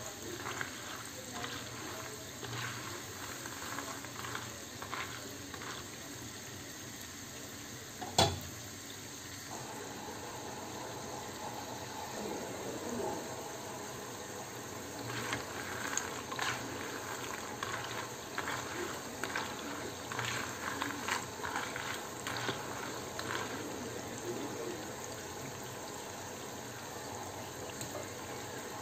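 A steady watery hiss of liquid in a kitchen, with scattered light clinks and clatter, and one sharp knock about eight seconds in.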